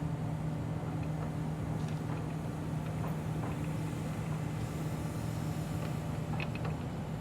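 An engine running steadily at an even speed, with a few light knocks about six seconds in.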